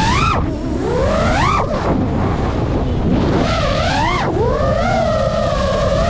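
FPV drone's motors whining, the pitch swooping sharply up and back down with throttle about three times, then holding a steady high whine for the last second or so. Low wind rumble on the drone's camera runs underneath.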